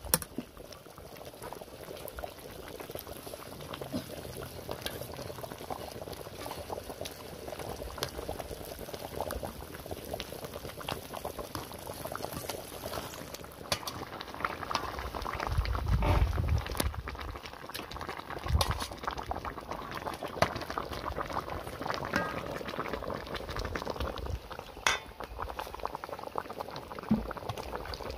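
Coconut-milk curry bubbling at a boil in a wok, with scattered sharp clinks of a metal ladle against the pan and bowl and a brief low rumble about two-thirds of the way through.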